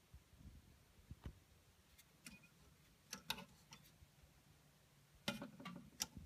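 Handling noise: faint scattered clicks and light taps in about four small clusters, from a hand working close to a display cabinet and figure.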